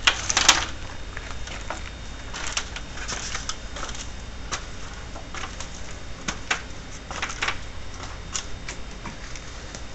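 Irregular light clicks and knocks of a corrugated PVC roofing panel being handled and shifted on the roof framing, the loudest knock right at the start.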